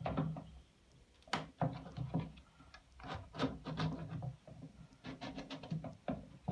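Clips being pulled off the edges of a metal mesh-holding frame, and the frame shifted and lifted on a plywood board: irregular scrapes, rubs and clicks, several a second, with a short lull about a second in.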